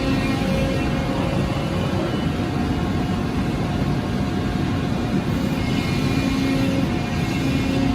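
Hydraulic press brake running steadily: the steady drone and hum of its hydraulic pump and motor, with faint tones that fade in and out.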